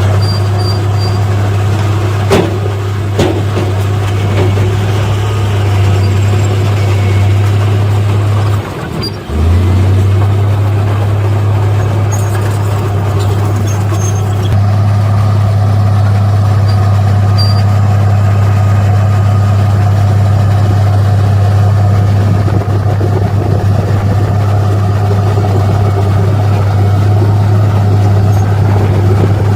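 Heavy diesel engine of earthmoving machinery running steadily under load with a deep, loud drone. It dips briefly about nine seconds in, then picks up again. A couple of short knocks are heard between two and three seconds in.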